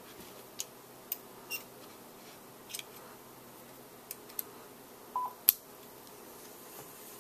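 Small metal clicks and taps of an Allen wrench and steel bolt parts being handled while a Savage Edge rifle bolt is put back together. About eight irregular clicks, the sharpest about five and a half seconds in.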